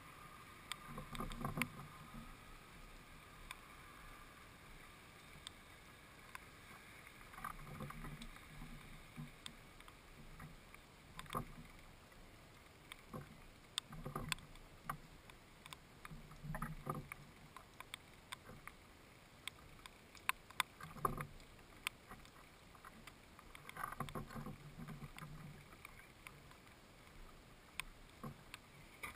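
House sparrow pecking and moving about on a wooden feeder close to the microphone: irregular sharp beak taps and clicks, with clusters of dull knocks and scrabbles on the wood every few seconds.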